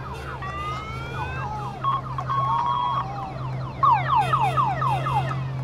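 Several electronic sirens sounding together from passing motorcycles, with overlapping rising wails, held tones and a fast run of falling whoops about four seconds in. Underneath is the steady low drone of the motorcycle engines.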